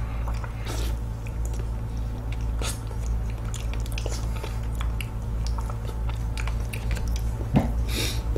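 Close-miked chewing of a ripe fresh fig: soft wet squishing and smacking mouth clicks, irregular and scattered, over a steady low hum.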